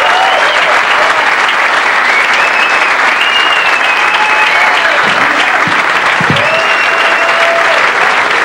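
Live audience applauding steadily, with whistles and cheers over the clapping.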